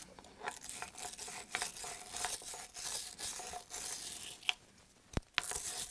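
Steel wire brush scrubbing the inside of a freeze-plug bore in a cast-iron engine block, a rapid irregular back-and-forth scratching that cleans old sealant and grime off the seat. The scrubbing stops a little before the end, followed by two sharp clicks.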